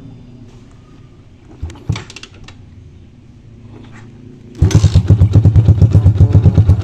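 Yamaha MX King's single-cylinder four-stroke engine being started: a couple of faint clicks, then, nearly five seconds in, the engine comes in suddenly with a loud, rapid pulsing of about ten beats a second.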